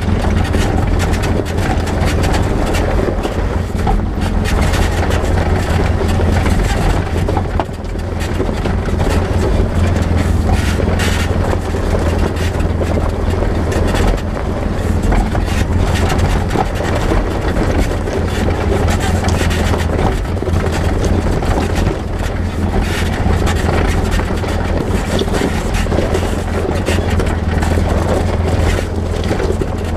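Polaris RZR side-by-side UTV engine running at a steady pace while driving a rocky dirt trail, with knocks and rattles from the bumpy ride. The sound dips briefly about eight seconds in.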